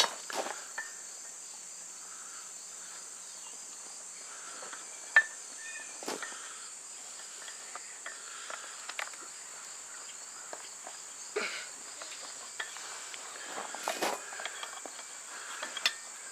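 Steady high-pitched chorus of crickets, with a few sharp metallic clicks and knocks of steel tongs and hot rebar against the anvil and its bending post, the loudest about five seconds in.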